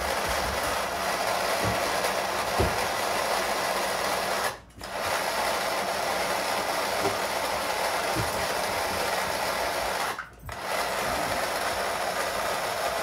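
Cordless battery-powered electric spice grinder whirring steadily while packed full with a heavy load of seasonings. It runs in three long pulses, cutting out briefly twice and starting again.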